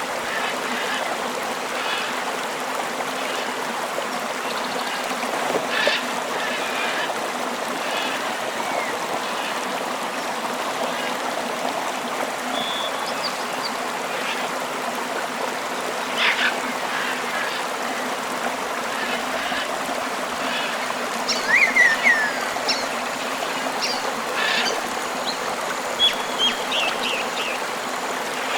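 River water flowing steadily, with scattered short bird chirps and whistles over it, the loudest a quick cluster of calls about three-quarters of the way through.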